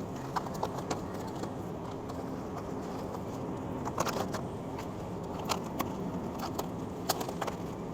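Steady background noise of a grocery store, with scattered light clicks and rattles throughout.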